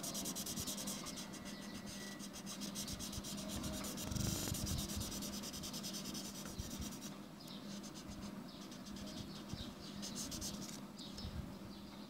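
Red felt-tip marker scribbling rapidly back and forth on paper while colouring in a shape. The strokes soften about seven seconds in and stop near the end.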